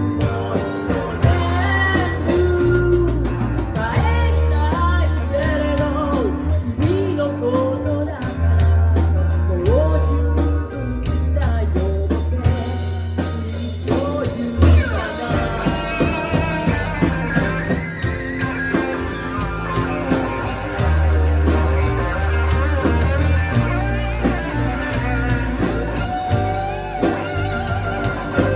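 A band playing the instrumental break of a song, with a guitar melody over bass and drums.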